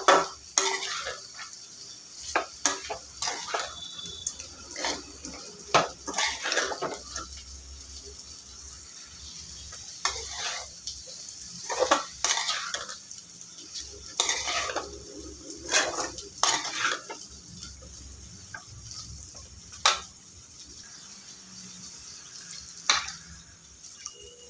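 A spoon scraping and clinking against a cooking pan as chicken pieces are stirred together with ground masala, in irregular strokes, with a faint sizzle.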